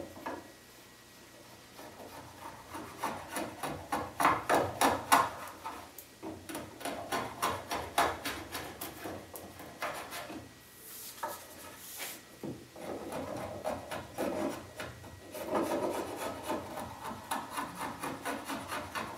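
Wood River chisel plane scraping dried glue squeeze-out off a glued-up wood panel, its blade rasping in quick short pushes, about three to four a second, in runs with brief pauses between them.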